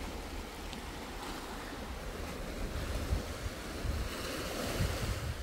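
Sea washing over a pebble and rock shore, with wind gusting on the microphone.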